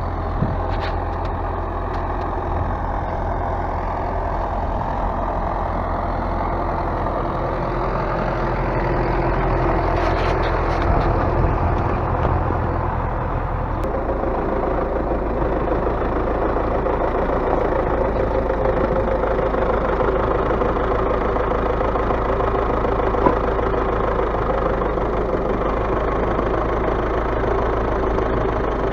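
A vehicle engine idling steadily, its low note shifting abruptly about fourteen seconds in.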